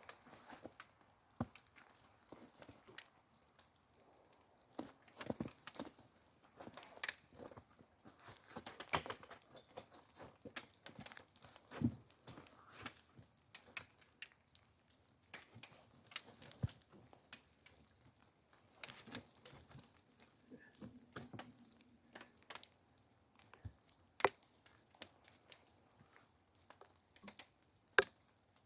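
Faint, irregular pattering of raindrops on wet gear, with scattered small taps and a sharper click near the end.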